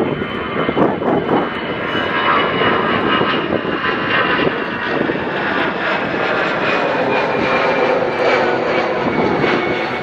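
Aircraft engines running loud and steady, with a high whine over a broad rush of noise.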